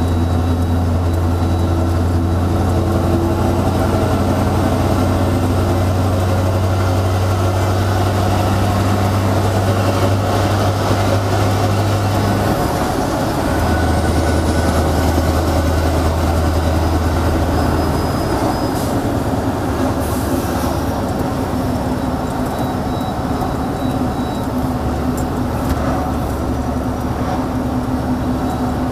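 Scania R620's V8 diesel engine running with a loud exhaust drone as the loaded truck drives. The low drone breaks off about twelve seconds in and comes back at a lower pitch, then eases about eighteen seconds in.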